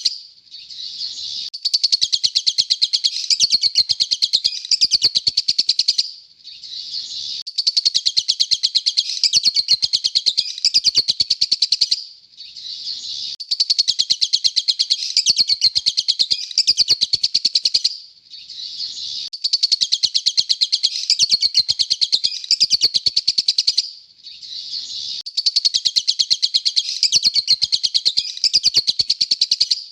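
Lovebird chirping in fast runs of short, high calls. The same burst of about six seconds repeats over and over with brief gaps between.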